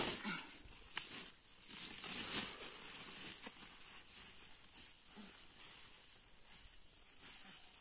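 Rustling and crinkling of a woven plastic sack and straw being handled, with a few soft knocks, loudest in the first couple of seconds and then fading to faint rustles.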